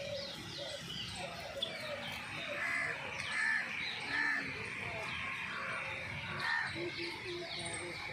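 A chorus of many birds chirping and calling at once, with a few louder, harsher calls around the middle.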